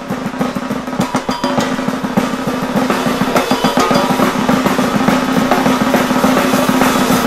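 Outro music built on a rapid snare drum roll over a steady low held note.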